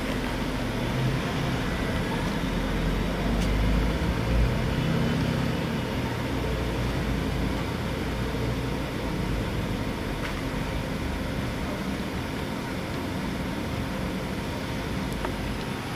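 Steady low rumble and hiss of background noise, with a few faint ticks.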